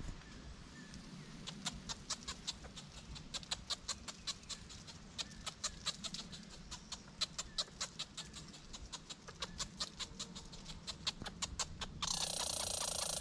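Red squirrel giving a rapid run of sharp clicking chucks, about four or five a second. About a second before the end, a louder steady buzzing hiss cuts in suddenly.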